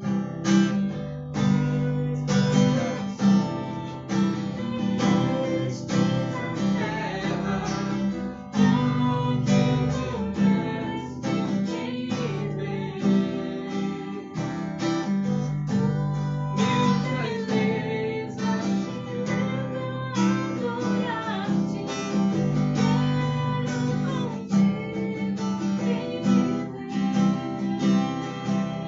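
Acoustic guitar strumming chords steadily: the instrumental break of a worship song, with no singing.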